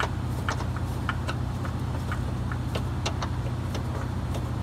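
A steady low mechanical hum, with scattered light metallic clicks as a bolt on the engine mount is turned in by hand.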